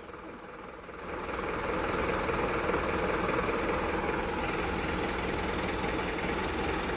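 Copasa truck's engine idling steadily, softer for about the first second and then even.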